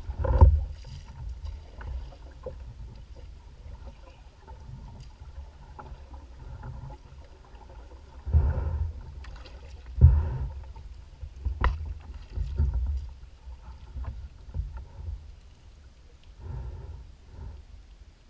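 A kayak drifting on choppy water: a steady low rumble of wind on the microphone, with water lapping at the hull and a handful of knocks on the kayak, the loudest about half a second in and about ten seconds in.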